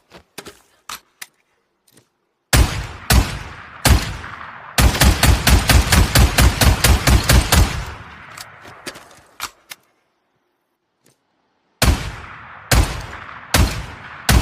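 Automatic shotgun firing. Faint mechanical clicks come first, then three single shots, then a rapid burst of about fourteen shots at roughly five a second. A few more clicks follow, and then four more single shots near the end, each shot trailing off in a long echoing tail.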